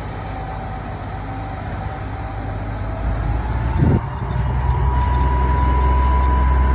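Heavy engine of the crane barge running steadily, then revving up with a short rising sweep about four seconds in and running louder under load after, with a steady whine.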